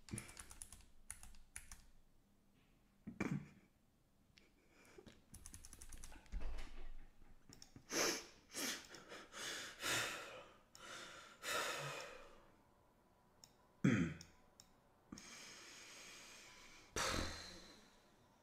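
A few computer-keyboard clicks in the first couple of seconds, then a string of heavy breaths and sighs.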